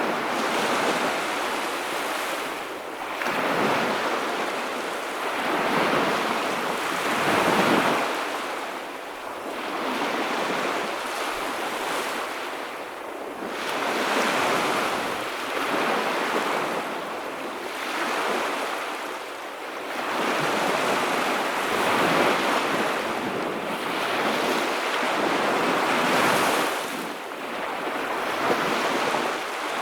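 Ocean waves breaking and washing ashore, each surge swelling and fading every two to four seconds in a steady series.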